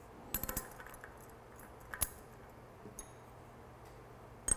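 Steel cassette sprockets and spacers clinking as they are slid onto a bicycle freehub body's splines: a quick cluster of light clinks near the start, then a few single metallic clicks, the loudest near the end with a brief ring.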